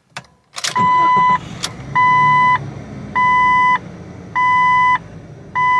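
Jeep Cherokee XJ engine starting about a second in and settling into a steady idle. Over the idle the dashboard seatbelt warning chime beeps five times at an even pace, about one beep a second.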